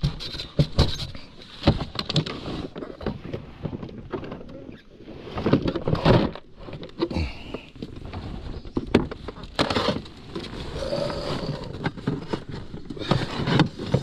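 Irregular knocks and bumps, with some muffled talk.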